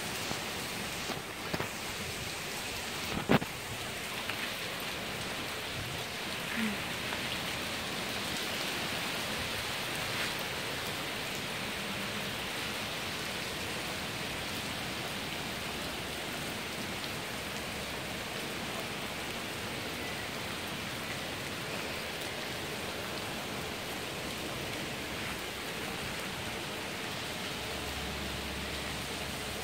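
Heavy rain pouring steadily onto pavement, puddles and garden plants, with a single sharp knock about three seconds in.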